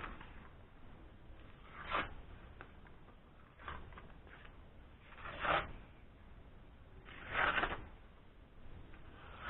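Knife blade drawn by hand along a sharpening stone, about five separate strokes, one every one and a half to two seconds.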